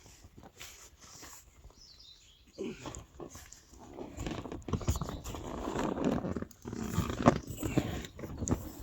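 Wading through shallow river water, irregular splashing and sloshing steps that start about two and a half seconds in and get louder.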